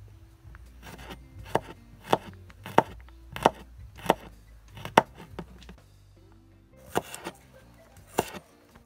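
Kitchen knife chopping garlic cloves on a wooden cutting board: a sharp knock with each cut, about every two-thirds of a second, then a short pause and a few more chops near the end.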